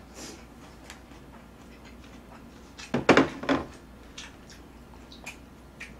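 A person eating tray jjajangmyeon: quiet chewing and a few light clicks, with a short louder burst of eating noise about three seconds in.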